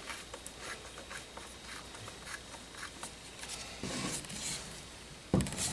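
Faint light clicks and scraping of a screwdriver working a hose clamp loose on an engine, with a brief louder knock near the end.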